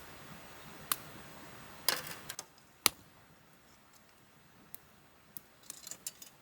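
Wood fire crackling: sharp, irregular pops and snaps, a few of them loud, over a faint background hiss.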